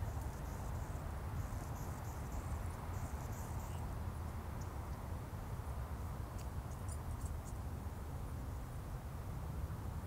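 Outdoor wetland ambience: a steady low rumble underneath, with faint high insect chirping coming and going over it.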